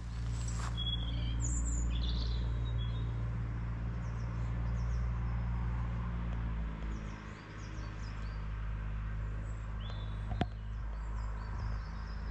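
Small birds chirping, a few short calls scattered through, over a steady low hum that briefly dips about two-thirds of the way through. A single sharp click comes about ten seconds in.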